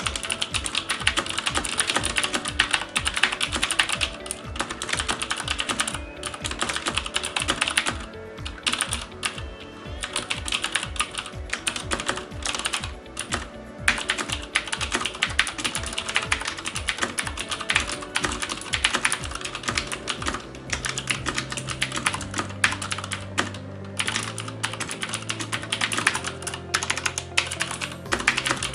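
Fast, continuous typing on a mechanical keyboard with clicky Cherry MX Blue switches, a rapid patter of sharp key clicks broken by a few short pauses. Background music with low bass notes plays under it, most plainly in the second half.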